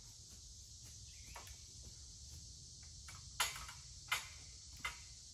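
Steady chorus of summer insects, with three short knocks and rattles about three and a half, four and almost five seconds in as a metal ladder stand is pushed upright against a tree.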